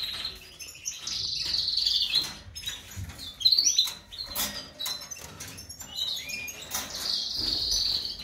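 Caged canaries and finch hybrids chirping and trilling in high warbling bursts, strongest about a second in and again near the end, with a sharp knock about three and a half seconds in.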